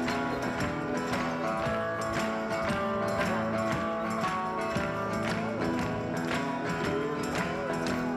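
Background music with many sustained notes and a regular beat, with plucked-string sounds.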